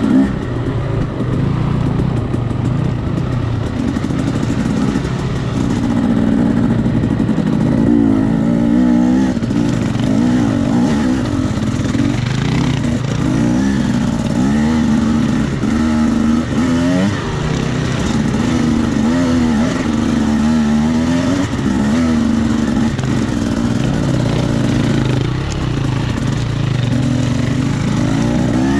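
Husqvarna enduro dirt bike's engine, heard from on board, revving up and falling back again and again as it is ridden over a rough trail.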